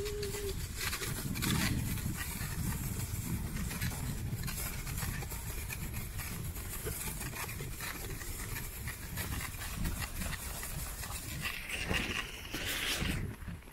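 A sledge sliding fast down a packed-snow track: a steady low rumble and hiss of the runners over the snow, with small knocks from bumps and a louder scraping rush near the end.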